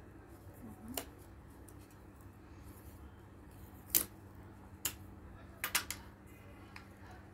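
Sharp snaps and clicks of pre-cut pieces being pushed out of a die-cut board sheet by hand: single snaps about one second and four seconds in, another soon after, then a quick run of three snaps. A faint steady hum lies underneath.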